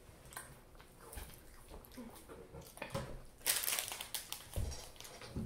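Plastic snack packaging crinkling in a brief rustle about three and a half seconds in, followed by a soft thump, amid quiet chewing and small handling clicks.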